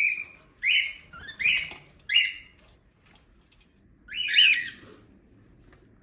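Cockatiel calling: about four short, harsh squawking calls in quick succession, then a pause and one more call about four seconds in.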